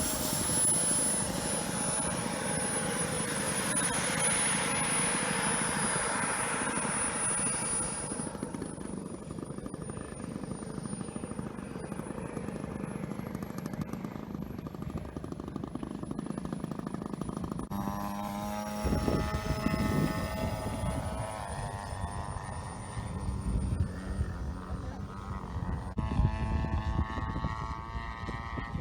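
Radio-controlled scale Boeing 737 model airliner flying, its motors giving a high steady whine over a rushing sound that drops away about eight seconds in. Later, engine-like tones with several pitches come and go.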